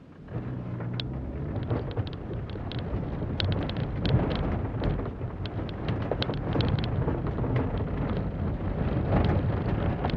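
A 2006 Holden Barina's four-cylinder engine pulls away hard just after the start, heard from inside the cabin and growing louder as the car accelerates. Frequent short sharp ticks and rattles sound over the engine and road noise.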